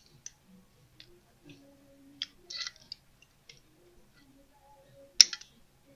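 Pliers working thin .025 wire at a car's wheel spinner: scattered small metallic clicks and snips, a quick flurry of them about two and a half seconds in, and one sharp loud snap a little after five seconds.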